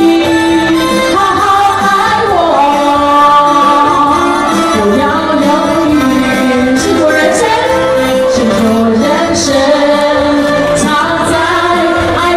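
Music with a singing voice carrying a melody over instrumental accompaniment.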